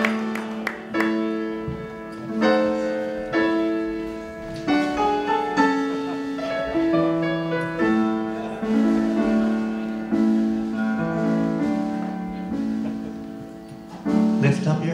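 Keyboard playing the slow introduction of a Broadway ballad with a live band, sustained chords changing about once a second. Near the end a man's voice comes in with the first sung line.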